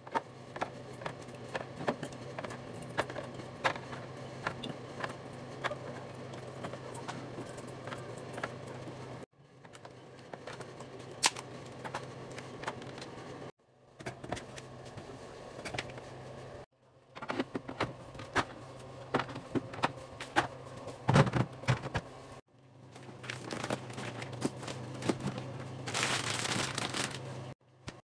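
Restocking handling sounds: small plastic yogurt-drink bottles and a milk carton being set down into a plastic organiser bin and a fridge door shelf, making many light clicks, taps and knocks over a steady low hum. The sound comes in short stretches that cut off abruptly, and there is a brief burst of hiss near the end.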